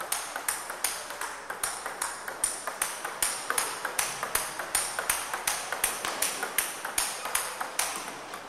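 Table tennis ball being hit back and forth in a rally: a steady run of sharp, ringing clicks, about three a second.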